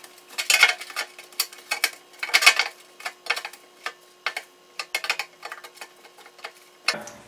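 Serrated-jaw vamp pliers gripping and working a seam of a Triumph Spitfire's sheet-steel front valance: irregular metallic clicks and short scrapes, the strongest about half a second and two and a half seconds in. The serrated jaws are tearing into the metal.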